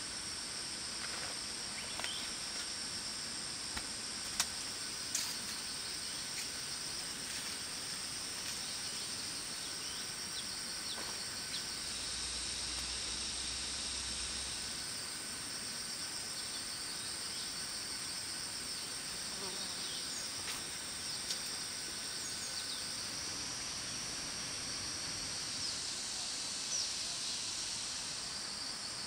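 Steady, high-pitched chorus of forest insects, with a few short chirps and a few light clicks here and there.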